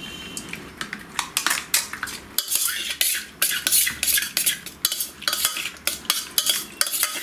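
Metal spoon stirring marinated raw prawns in a stainless steel bowl: rapid, irregular clinks and scrapes of spoon on steel, several a second.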